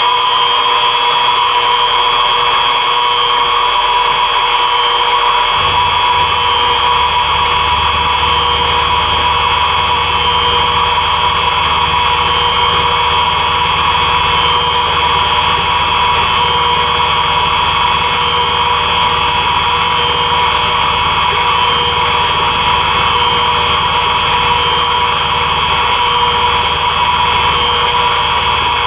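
Mini mill's spindle motor whining steadily while an end mill cuts a quarter-inch-deep slot through Delrin plastic, cutting smoothly without bogging down. A lower hum joins about five seconds in.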